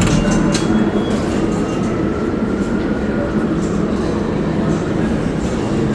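Steady rumble of a subway train in the station, with a faint squeal that rises and falls over a few seconds early on.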